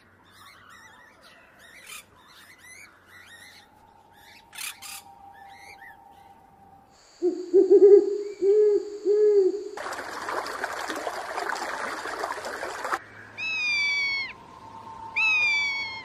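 A run of bird calls: faint chirps of parakeets for the first few seconds, then three low owl hoots, the loudest part. A harsh hissing screech of about three seconds, typical of a barn owl, follows, and two falling whistled calls come near the end.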